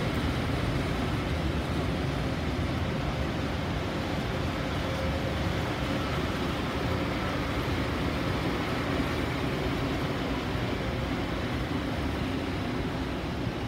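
Locomotive-hauled passenger carriages rolling past along the platform: a steady rumble of wheels on rail with a faint, even hum.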